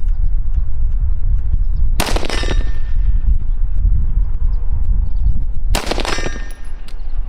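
Two shots from an AR-15 rifle firing 5.56 M855 green-tip rounds, nearly four seconds apart, each followed by a short fading ring, consistent with the bullet striking an AR500 steel plate. A steady low rumble runs underneath.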